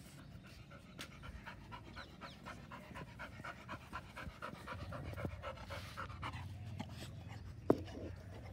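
Large dog panting in quick, even breaths close by. One sharp knock sounds near the end.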